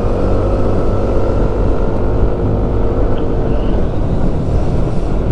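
Motorcycle engine running at a steady pitch while riding uphill, with wind rumbling on the microphone. The engine tone eases about four seconds in.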